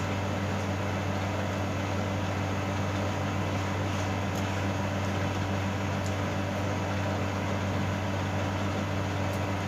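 Steady low machine hum of an appliance running in the room, like an air conditioner or fan, with a few faint clicks of eating by hand.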